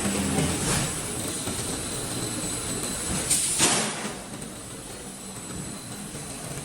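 Roll forming machine for C/Z-profile steel running: a steady mechanical noise with a faint high whine, and a brief loud rush of noise about three and a half seconds in.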